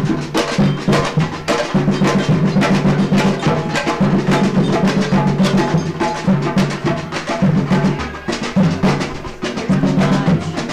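Brazilian-style drum ensemble playing a fast, steady rhythm: big bass drums and smaller drums struck with sticks.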